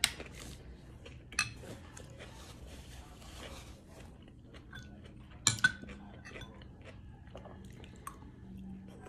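Metal fork clinking against a salad bowl in a few sharp knocks, the loudest about five and a half seconds in, with quiet chewing between.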